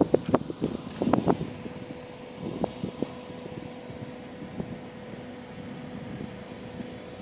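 A steady mechanical hum on one pitch with wind on the microphone, broken by a cluster of sharp knocks and rustles in the first second and a half and a few more about two and a half to three seconds in.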